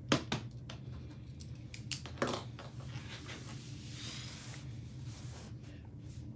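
A few sharp clicks just after the start and twice more around two seconds in, then a brief rustle about four seconds in, over a steady low hum.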